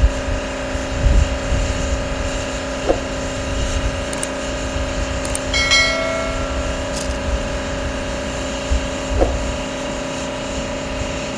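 Steady mechanical hum with a low rumble from the idling laser weapon truck and its cooling fans. About halfway through, a click and a short bell chime from a subscribe-button sound effect.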